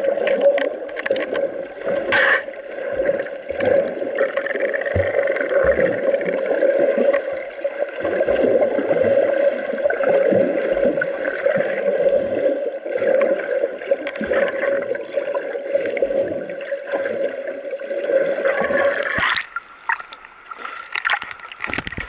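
Muffled underwater sound picked up by an action camera held under the sea: a steady hum with gurgling and bubbling water. It stops near the end as the camera comes back out of the water.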